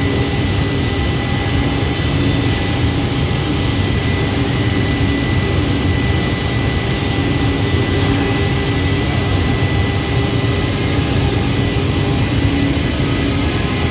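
Automatic CNC scroll saw running steadily: a constant mechanical drone with a steady high whine, and a short hiss right at the start.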